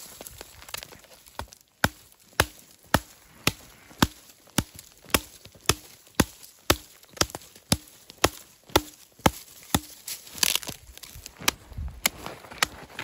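Hatchet chopping into a small green tree trunk, a steady run of sharp strikes about two a second, with a brief rush of noise about ten seconds in as the tree gives way, then a few more chops.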